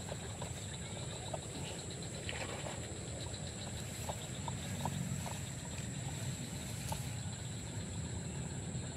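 Outdoor swamp ambience: a steady high-pitched drone over a low rumble, with a few faint clicks.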